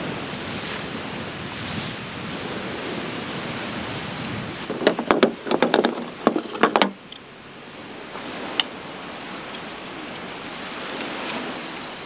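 Hard plastic spring clamp clicking and knocking against a car's metal hood, a quick run of sharp clicks about five seconds in that stops after about two seconds, with one more click a little later, over steady wind noise.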